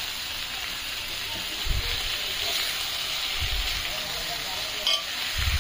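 Marinated prawns and onion-tomato masala sizzling steadily as they are stir-fried over a high flame in a nonstick kadai, turned with a silicone spatula. Three dull low knocks come through, about a second and a half to two seconds apart.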